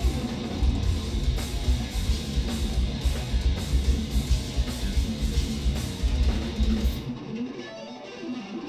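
Live instrumental progressive metal: eight-string electric guitars over heavy drums and cymbals. About seven seconds in, the drums drop out and the level falls, leaving the guitar playing alone and quieter.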